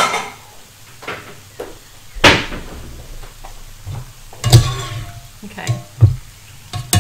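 Kitchen crockery clatter: a handful of separate knocks and clunks as white ceramic bowls are fetched and handled.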